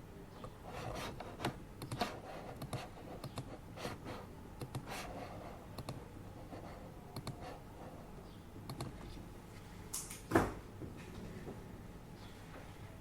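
Typing on a computer keyboard: irregular runs of key clicks, with one louder knock about ten seconds in.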